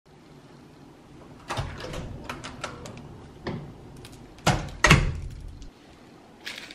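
A room door with a metal lever handle being opened and closed while a plastic bag and paper bowl of takeaway food are collected and handled: a series of clicks and knocks, the two loudest close together about four and a half seconds in.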